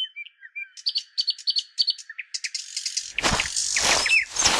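Small birds chirping and twittering in quick, short calls over a faint steady high tone. From about three seconds in, a loud rushing noise comes in under the birdsong.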